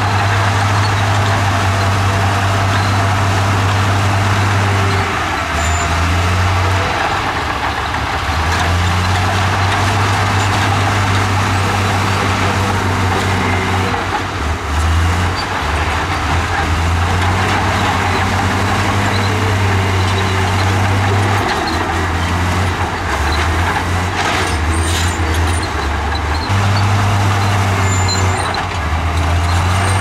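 Komatsu crawler bulldozer's diesel engine working steadily as the dozer pushes rock, its low drone dipping in pitch several times as the blade takes load, then picking up again.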